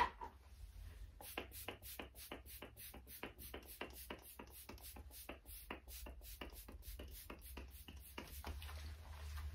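A makeup brush swept quickly and repeatedly over the face: faint, soft brushing strokes at an even pace of about three to four a second, starting about a second in.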